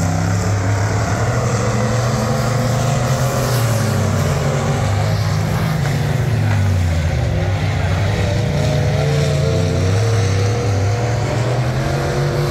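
Pure Stock dirt-track race cars' engines running as they circle the oval, a loud, steady drone whose pitch wavers slightly up and down, with a higher engine note coming in more strongly over the second half.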